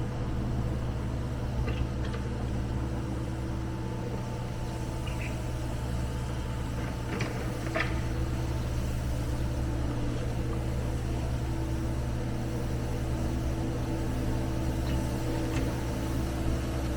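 John Deere 325G skid steer's diesel engine running steadily, with a few faint clicks over it.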